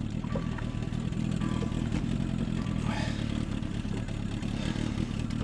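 Boat motor idling: a steady low rumble.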